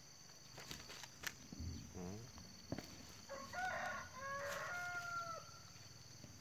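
A rooster crows once, starting a little past three seconds in: a few short rising notes, then a long held note. Dry cane stalks crackle and snap underfoot as sharp clicks.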